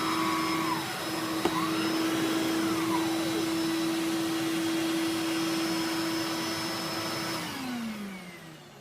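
Electrolux 3500 SR upright vacuum cleaner running with a steady motor hum and a single click about a second and a half in. About seven seconds in it is switched off, and the motor winds down with a falling pitch.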